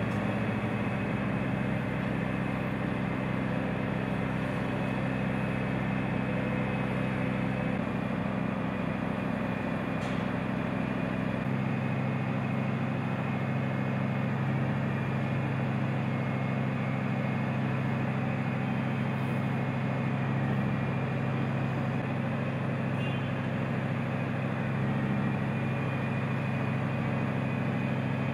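Heavy diesel engine of a mobile crane running steadily through a heavy lift, a loud low drone. Its tone changes about eleven seconds in.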